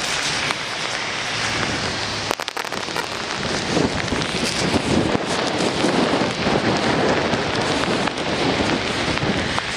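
Steady rain falling on wet ground, with a few sharp clicks about two and a half seconds in.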